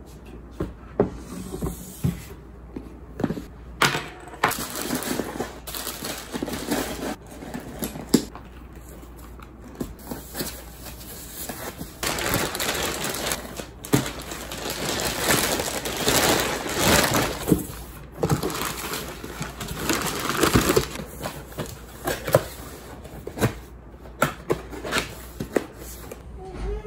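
Plastic clothing packaging bags crinkling and rustling as garments are folded back into them, with a cardboard box being handled and set down. The sound comes as irregular knocks and clicks, with a long stretch of denser crinkling in the middle.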